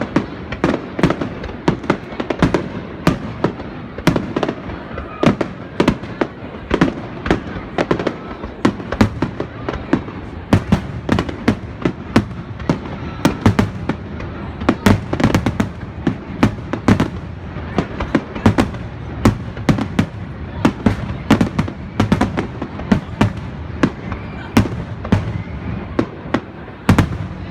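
Fireworks display: aerial shells bursting in quick, irregular succession, several sharp bangs a second, with the noise never dying away between them.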